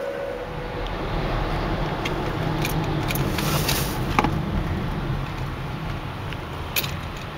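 Steady road and engine noise from inside a car moving on a freeway, a low rumble with a few sharp clicks and knocks, the loudest a little past halfway.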